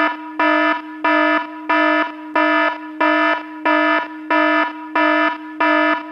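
Electronic alarm-like beeping: a steady buzzing tone with a brighter beep pulsing over it at an even pace, just under two beeps a second.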